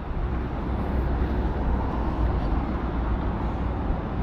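Steady urban road-traffic noise: a continuous low rumble of passing cars with an even hiss of tyres and engines over it.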